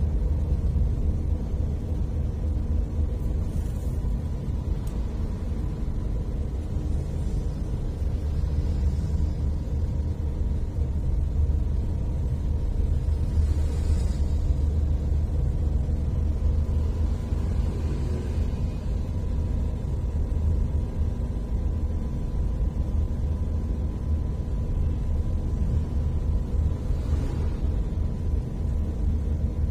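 Steady low rumble of a car's engine and tyres on the road, heard from inside the moving car, with a faint steady whine above it. Other vehicles swish past a few times, about 14, 18 and 27 seconds in.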